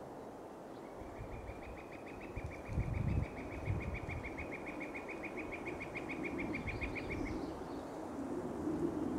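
A bird's long, even trill: a rapid run of same-pitched notes lasting about six seconds, over a low rumble that swells about three seconds in.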